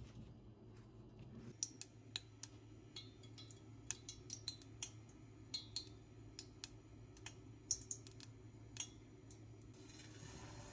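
Scattered, irregular sharp ticks and pops from a stainless saucepan of oil heating on a gas burner. Near the end a drop of batter goes into the oil and a soft sizzle begins, the test that the oil is hot enough for frying.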